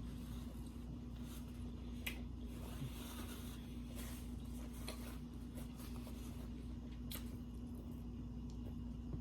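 Close-miked eating sounds of someone chewing a street taco: soft wet mouth noises with a few sharp clicks, over a steady low electrical hum.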